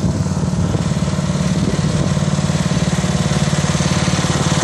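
Murray riding lawn mower's small engine running steadily with a fast, even putter.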